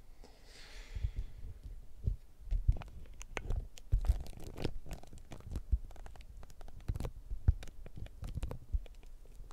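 Handling noise: a short papery rustle near the start, as of cards being handled, then a run of irregular low thumps and knocks as the table and camera are bumped.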